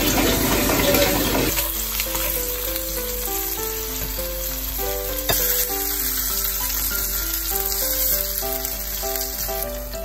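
Smoked tofu and cherry tomatoes sizzling in hot oil in a frying pan, loudest in the first second or so, with background music.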